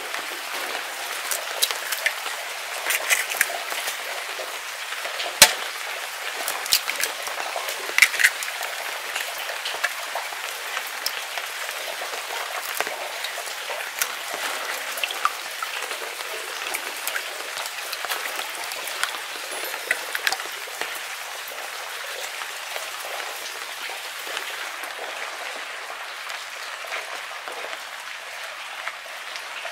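Steady rain pattering, with scattered sharp clicks and taps as eggs are cracked against a ceramic bowl and worked by hand.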